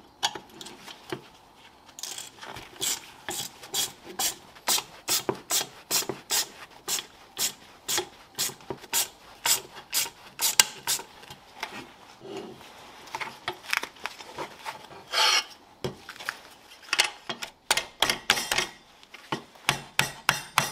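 Rasping, scraping strokes of a hand tool, fast and even at about two to three a second for some nine seconds, then slower and irregular, with one longer scrape partway through.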